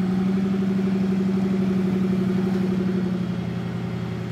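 Rock-crawler buggy's engine running at a steady pitch under load as it climbs a steep rock ledge, easing off a little about three seconds in.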